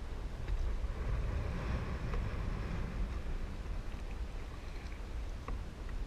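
Wind noise on the microphone over water splashing and lapping against a sea kayak's hull as it is paddled.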